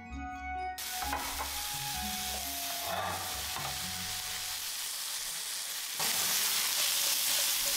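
Button mushrooms and butter frying in a hot ridged grill pan, a steady sizzle starting about a second in as a wooden spatula stirs them. The sizzle gets louder for the last two seconds. Soft keyboard music plays at the start and fades under the frying.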